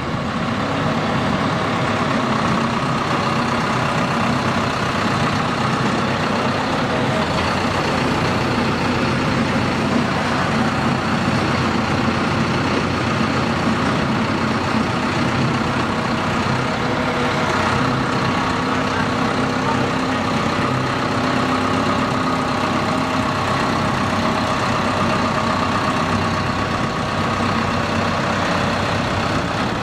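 Pile driver running steadily: a continuous heavy machine drone, even in loudness, with no separate hammer blows standing out.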